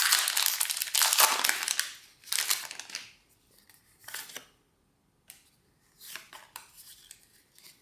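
Foil wrapper of a Pokémon TCG booster pack being torn open and crinkled, loud for the first three seconds, then a few shorter, softer rustles.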